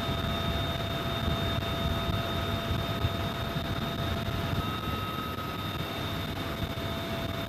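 UH-1Y Venom helicopter in flight, heard from inside its cabin by the open door: a steady low rotor and engine rumble under wind rush, with a steady high-pitched whine.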